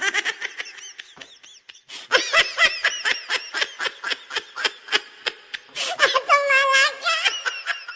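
High-pitched laughter in a rapid run of short 'ha' syllables, about six a second, starting about two seconds in. Near the end it breaks into a longer, wavering squeal.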